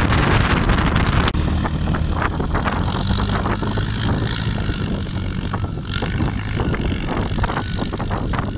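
CF Moto Gladiator X450 ATV's single-cylinder engine running hard as the quad slides and spins through snow, throwing it up. Wind buffets the microphone for about the first second, up to an abrupt cut.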